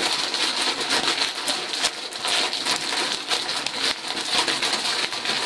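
A plastic bag of oyster mushroom grain spawn being squeezed and kneaded by hand: a steady dense crackling and crinkling of plastic and colonised grain. The mycelium-bound block is being broken apart into loose single grains ready for inoculation.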